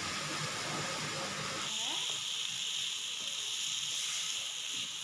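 Chopped carrots, beans and potatoes sizzling in a hot frying pan as they are sautéed with a wooden spatula: a steady hiss that turns brighter about two seconds in.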